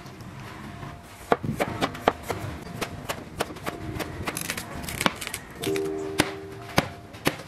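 Cleaver chopping carrots and corn cobs on a wooden cutting board: a run of sharp, irregular knocks, two or three a second, starting about a second in, over background music.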